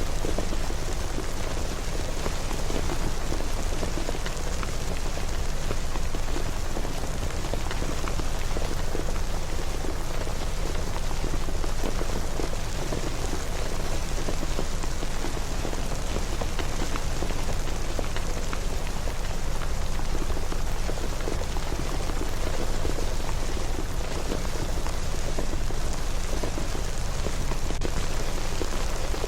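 Steady rain falling and pattering on hard surfaces, an even hiss with many small drop impacts.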